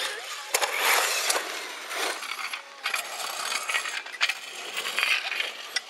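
HoBao Hyper 7 1/8-scale brushless RC buggy bouncing across dirt track humps: gritty tyre scrabble with repeated sharp clattering knocks.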